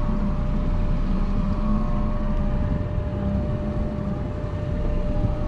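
Small fishing boat's engine running steadily at low speed, a continuous rumble with a steady whine above it.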